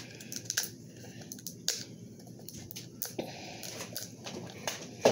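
Fingers picking at the plastic cap and seal of a new sauce bottle, making scattered small clicks and crinkles.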